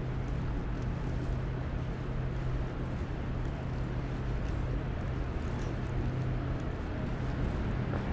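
A steady low mechanical hum over a noisy street background; the hum fades out near the end.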